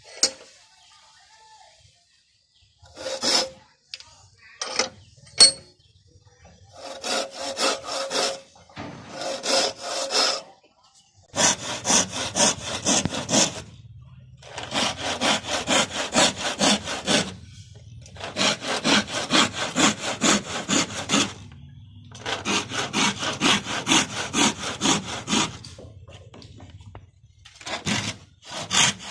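Hand saw cutting a small piece of wood in quick back-and-forth strokes. The sawing comes in runs of two to three seconds with short pauses between them, after a few separate short scrapes in the first seconds.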